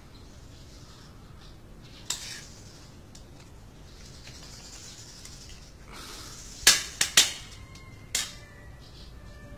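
A metal spoon clinking against a metal pan as food is scooped out: one clink about two seconds in, a quick run of three a few seconds later, then one more.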